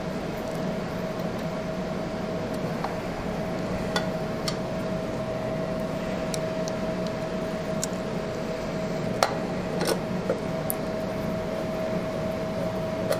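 Steady machine hum with a constant whine, with scattered light clicks and taps of bolts and a hand tool being handled at the motorcycle's engine cover.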